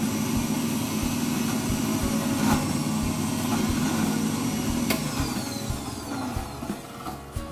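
Electric kitchen blender running, blending boiled pepper and onion into a paste. It starts abruptly, runs steadily, and cuts off near the end.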